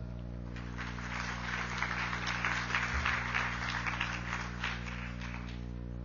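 Audience applauding after a talk ends, swelling over a couple of seconds and fading out near the end, over a steady low electrical hum.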